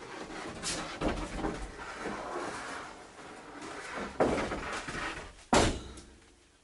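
Heavy building material being handled and shifted: rustling and scraping, with a sharp knock about four seconds in and a louder knock about a second and a half later.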